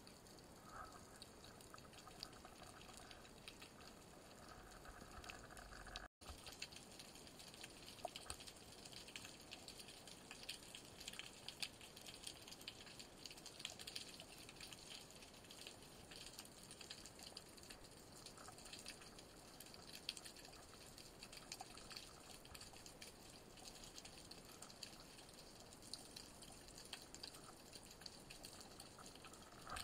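Faint underwater ambience: a steady hiss with dense, fine crackling clicks throughout, briefly cut off about 6 seconds in.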